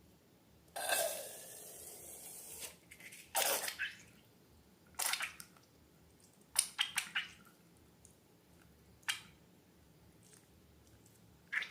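Slime being squished and handled by hand: a longer wet squelch about a second in, then a string of short, separate squelches and pops with quiet between them.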